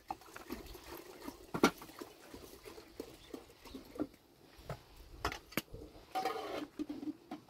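Scattered light clicks and knocks of a metal cooking pot and its lid being handled and set down on a gas stove's burner grate, with a little rustling. A sharp click about one and a half seconds in is the loudest.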